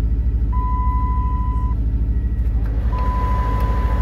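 2006 Dodge Charger R/T's 5.7 L Hemi V8 idling, a steady low rumble heard from under the dashboard. Two long, steady electronic beeps from the car sound over it, each about a second long, starting about half a second in and again near three seconds in.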